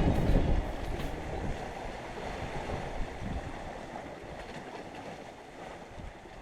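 Wind on the microphone over the sound of sea waves, heaviest at the start and easing off after a second or so.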